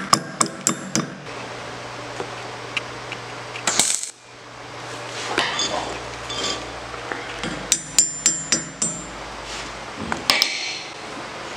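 Hammer striking the steel teeth of a reamer, sharp metallic taps that ring: several at the start, a quick run of about five strikes around eight seconds in, and more near the end. A brief hiss sounds about four seconds in.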